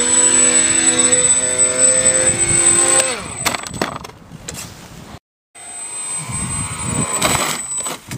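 Twin 2212 brushless electric motors with pusher propellers on a foam RC plane, running with a steady whine that falls in pitch about three seconds in as the motors spin down at the crash. After a brief dropout comes rough rustling noise with no motor tone.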